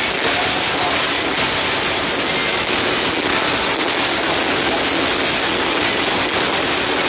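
Loud performance music over a nightclub sound system, so distorted that it comes through as a dense, steady hiss with little bass.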